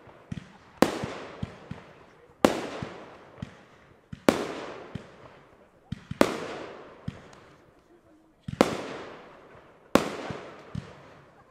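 Aerial firework shells bursting: six loud bangs about every one and a half to two seconds, each trailing off in a long echo, with smaller pops in between.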